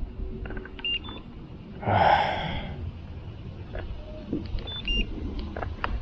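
A man's sharp, breathy exhale about two seconds in. Short electronic beeps, two high tones each time, about a second in and again near five seconds, with scattered small clicks.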